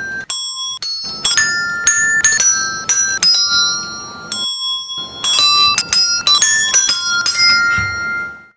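Tuned desk bells (tap-plunger call bells) struck one after another by a cat's paw and a person's finger. Each strike gives a bright ding that rings on, together picking out a melody, and the ringing stops abruptly near the end.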